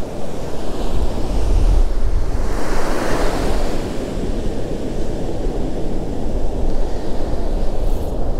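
Ocean surf breaking on the beach, a steady wash that swells louder about three seconds in, with wind rumbling on the microphone.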